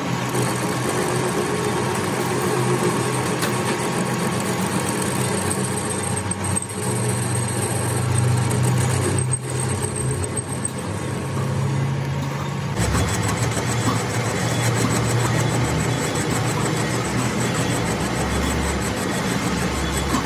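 A motor-driven machine running steadily with a constant low hum, its sound changing abruptly about thirteen seconds in.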